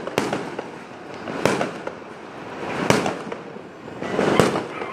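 Aerial fireworks bursting: four loud bangs about a second and a half apart, with fainter cracks and crackling between them.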